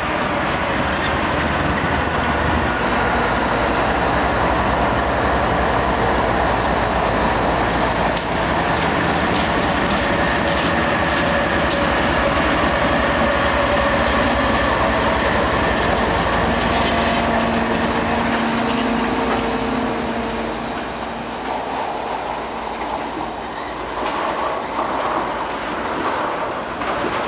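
CSX diesel locomotives running slowly past with a steady low engine drone, then freight tank cars and covered hoppers rolling by with wheel-on-rail clatter. A few squealing wheel tones come in around the middle, and the sound eases off a little near the end as the cars replace the engines.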